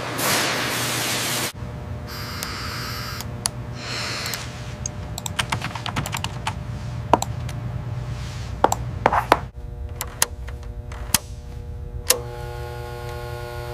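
A loud burst of hiss for the first second and a half, then computer keyboard typing: scattered, irregular key clicks. Near the end a steady hum of several held tones comes in.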